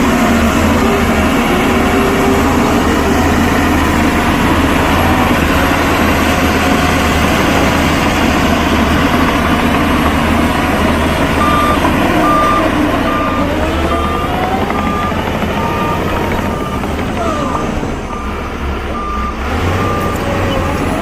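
Heavy diesel earthmoving machinery running loudly; from about halfway through, a reversing alarm sounds a steady series of short beeps, about two a second, while a machine backs up.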